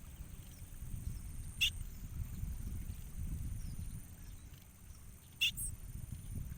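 Two short, sharp bar-winged prinia calls, about four seconds apart, over a constant low wind rumble.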